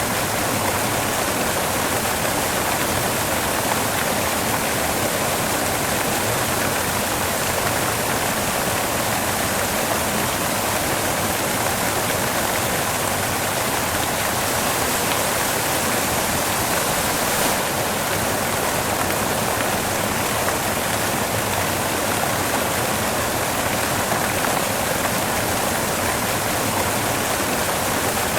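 Steady white noise: an even, unbroken hiss with no change in level.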